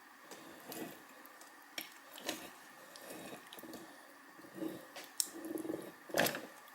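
Wet squishing of raw, oil-marinated small hens being handled and tied with string for a rotisserie, in irregular short bursts with a few light clicks, the loudest squish near the end.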